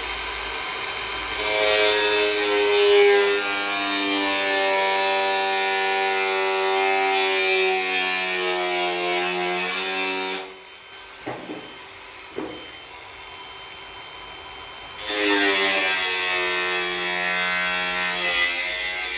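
Cordless angle grinder cutting into the sheet-steel cover of a distribution board enclosure, a steady whine with a hiss of metal being cut. It starts about a second in, runs for about nine seconds, stops with a couple of light knocks, then cuts again for the last four seconds.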